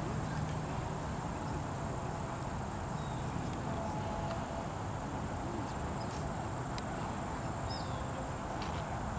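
Outdoor background of a steady high insect drone over a low rumble, with a few faint chirps and small ticks.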